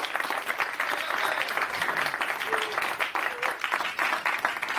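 Audience applauding: many hands clapping steadily at the end of a talk.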